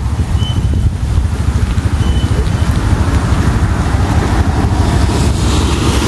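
Wind buffeting the microphone: a loud, steady, fluttering low rumble.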